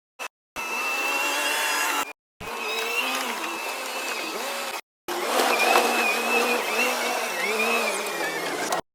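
An earthmoving machine's engine and hydraulics running under load, a steady mechanical noise with a high whine and a wavering lower drone. It comes in four short clips, each broken off by a sudden cut to silence.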